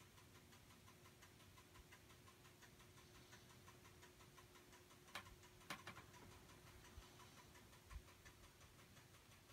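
Near silence: room tone with a faint steady hum and a few soft clicks about five to six seconds in.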